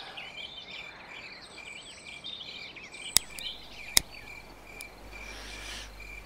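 Night-time crickets chirping in a steady pulsing trill, about three pulses a second, with lighter chirping calls above it. Two sharp clicks about three and four seconds in.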